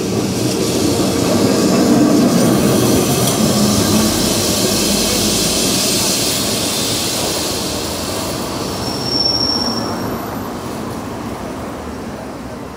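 A Lisbon tram passing close by, rumbling along the rails, loudest about two seconds in and then slowly fading. A brief high wheel squeal comes about nine seconds in.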